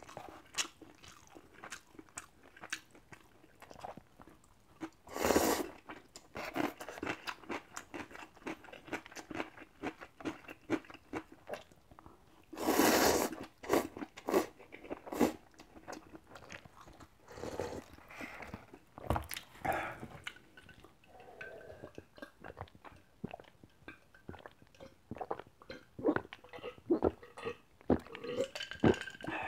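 Close-miked eating sounds: instant cup noodles slurped loudly about 5 and 13 seconds in, with wet chewing and mouth clicks in between, and swallowing from a water bottle near the end.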